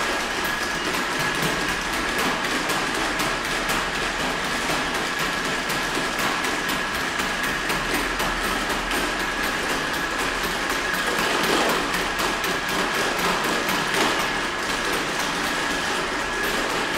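Unitree Aliengo quadruped robot walking on a hard floor: its feet make repeated tapping clicks over a steady high whine.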